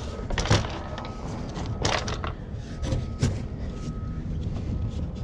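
Handling noise from a van's plastic interior door panel and its wiring being worked by hand: rustling with a few sharp knocks and clicks, the loudest about half a second and two seconds in.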